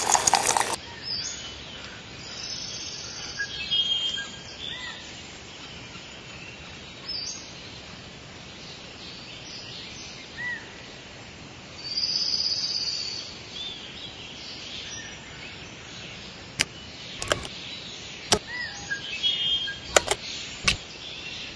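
Outdoor ambience with scattered short bird chirps, opening with a brief loud rush of noise. A series of sharp clicks comes in over the last five seconds.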